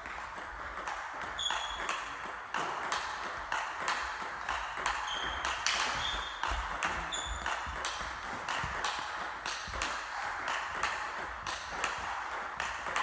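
Table tennis backhand rally: the ball clicking off the bats and the table, about two hits a second in an even back-and-forth rhythm, with a few brief high squeaks of shoes on the sports-hall floor.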